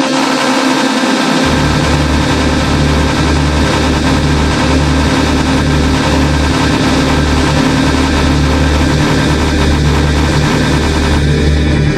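The 'rizz' meme sound effect stacked 128 times over itself, piled up into a loud, dense wall of noise. A heavy, pulsing bass comes in about a second and a half in.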